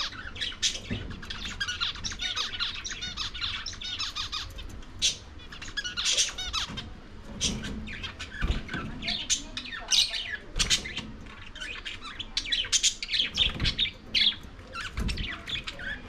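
Budgerigars chattering: a dense stream of quick chirps, warbles and squawks, with a few dull knocks in the second half.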